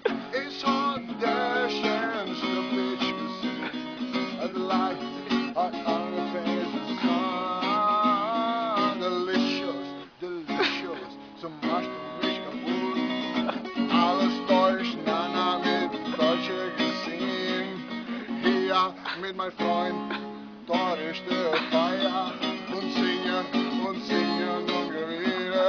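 Acoustic guitar strummed, with a man singing along; the music drops out briefly about ten seconds in.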